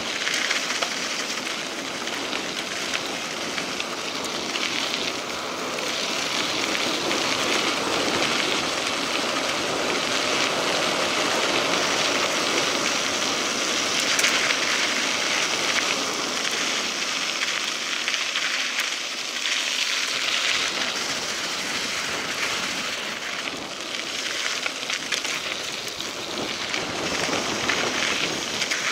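Mountain bike tyres rolling over a gravel dirt road, a steady gritty hiss that rises and falls a little with the surface.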